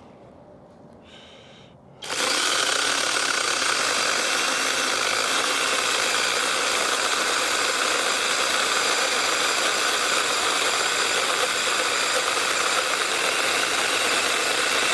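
Battery-powered 6-inch mini chainsaw starting abruptly about two seconds in and running steadily as it cuts into a log of about five and a half inches, close to the saw's maximum cutting diameter.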